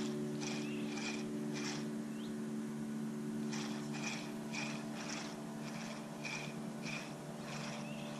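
Spinning reel being cranked to retrieve a wobbler: soft ticks about twice a second over a steady low hum.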